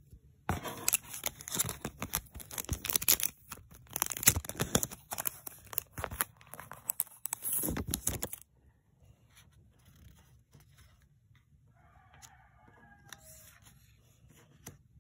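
Crinkling and crackling of a clear plastic photocard sleeve being handled, dense and irregular for about eight seconds, then stopping, leaving only a few faint handling clicks.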